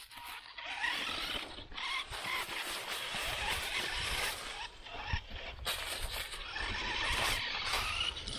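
Redcat Blackout XTE electric RC truck driving over the yard, its motor whining and wavering in pitch with the throttle over a steady hiss of tyres through leaves and grass, on a battery that is running low.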